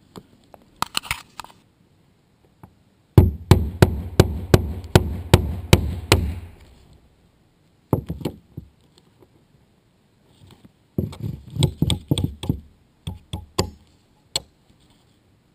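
Claw hammer driving plastic cap nails through synthetic roofing underlayment into the OSB roof deck. A few light taps come first, then two quick runs of blows, about three a second, one a few seconds in and one near the end.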